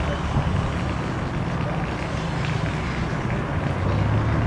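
Steady low rumble of a diesel engine running at idle, from heavy equipment such as the backhoe working at the collapsed wall.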